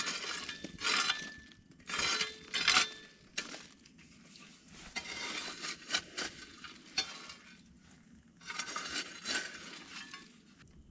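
A small steel spade scraping and shovelling glowing charcoal embers and ash in a stone fire pit, in a series of separate scraping, crunching strokes with light clinks.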